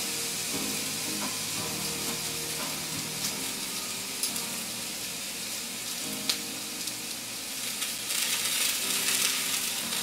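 Chicken breast sizzling on a hot cast iron grill pan over medium heat: a steady frying hiss with a few light clicks, growing louder near the end as the chicken is turned.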